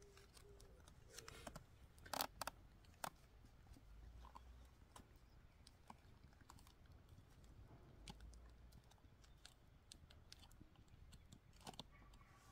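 Faint crinkling and scattered clicks of a small plastic sachet being torn open and handled, with a few sharper clicks.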